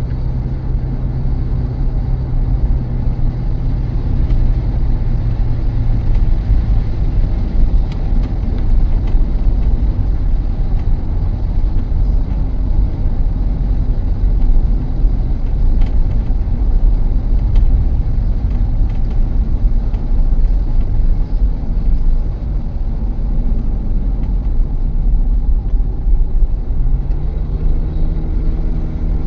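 Car driving: a steady low rumble of road and engine noise. An engine hum fades out about six seconds in and comes back near the end, rising in pitch.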